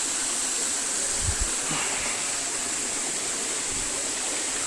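Steady rushing of running water from a stream or small waterfall, with a couple of soft low bumps.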